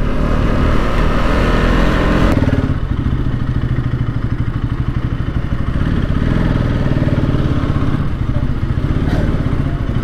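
Bajaj Pulsar NS 200's single-cylinder engine running as the motorcycle is ridden, busier for the first two seconds or so and then settling to a steady run.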